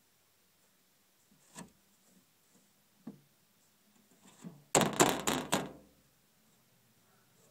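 Knocks on a hard surface: two light ones early, then a quick run of four or five louder knocks about five seconds in.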